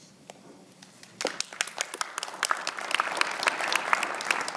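Audience applause, many hands clapping, starting about a second in and building in loudness.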